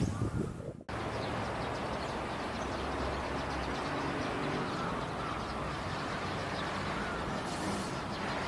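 Steady outdoor ambience: an even background hiss with a low hum underneath and a few faint bird chirps. A voice cuts off abruptly just under a second in, where the ambience begins.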